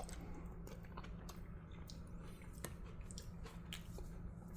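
Faint chewing of a mouthful of chicken salad, heard as scattered soft clicks over a steady low hum.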